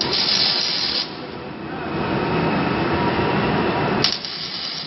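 Two bursts of spraying hiss, the first about a second long at the start and the second starting near the end, over a steady lower background noise.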